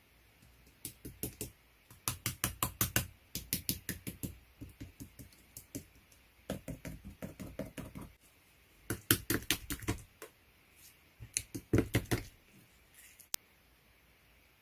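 Rapid clicks in several bursts of one to two seconds, several a second, with pauses between, and one lone sharp click near the end.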